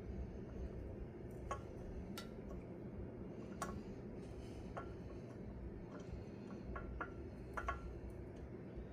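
Faint, scattered light metal clicks and ticks, a few with a short ring, as steel bolts are started by hand into the threads of a tractor wheel hub's axle-bar clamp. A steady low hum runs underneath.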